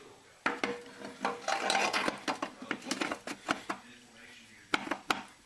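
Metal parts clinking and clattering as a transmission center support is worked down by hand into an aluminium transmission case, a quick run of knocks and clicks followed by two sharp clicks near the end.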